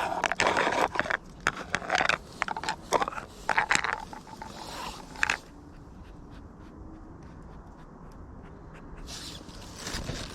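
Cats eating raw meat: quick chewing clicks and scraping, busy for about the first five seconds, then quieter with only a few faint ticks before picking up again near the end.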